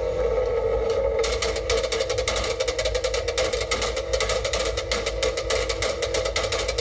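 Mitsubishi Lancer Evolution X's turbocharged four-cylinder held at steady revs through an aftermarket performance exhaust, with rapid, irregular pops and crackles the whole time. The crackles are backfires in the exhaust, which is shooting flames.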